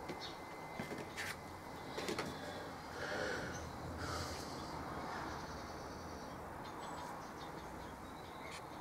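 Faint handling noise from model kit parts: a few light taps in the first couple of seconds as the small pieces are set down on the tabletop, then soft rustling.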